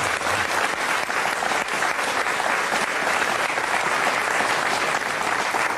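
Studio audience applauding, steady clapping.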